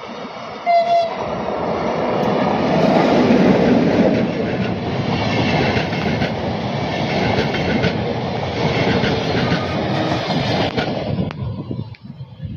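An electric locomotive sounds a short horn toot about a second in. Then its long train of passenger coaches rolls close past, with a steady rolling roar and repeated clacks of the wheels over the rail joints. The noise drops away suddenly near the end as the last coach goes by.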